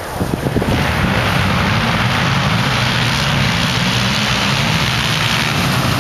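A pack of race quads (ATVs) leaving the start line together at full throttle, many engines merging into one loud, dense drone that comes up sharply about a second in and holds steady.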